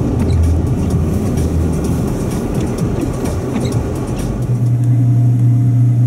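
Car cabin noise while driving through deep snow: a dense low rumble of engine and tyres. About four and a half seconds in it changes abruptly to a steady low hum.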